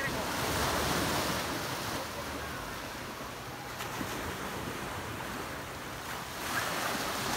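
Small waves washing onto a sandy beach, swelling about a second in and again near the end, with wind on the microphone.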